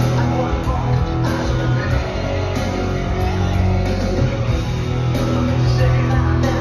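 Rock music with guitar, held low bass notes and drum hits.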